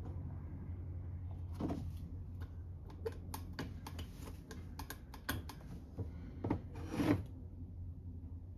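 Small metal carburetor parts being handled and tapped against each other and the bench: an irregular run of light clicks and taps, with a few louder rubbing knocks, over a steady low hum.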